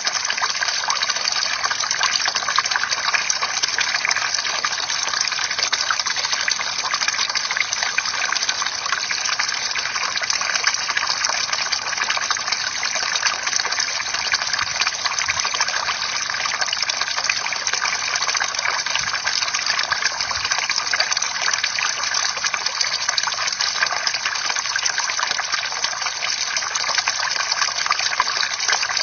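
Water from a bamboo fountain pouring and splashing steadily into a pool, with a constant gushing and a fine patter of drops.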